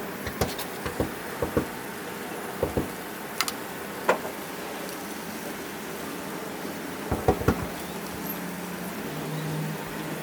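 Steak slices sizzling on a charcoal grill: a steady hiss with scattered sharp pops and crackles from the fat and coals.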